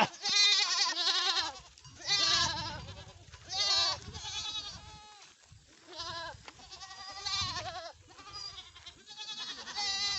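Herd of goats, young kids among them, bleating over and over: about seven wavering, quavering calls, some overlapping, from several animals.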